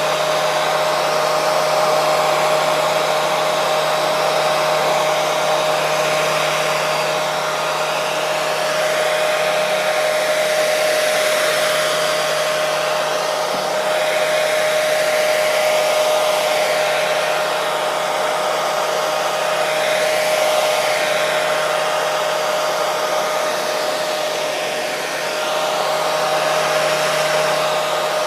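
Electric hair dryer running steadily: a continuous airy rush with a steady whine from the motor and fan.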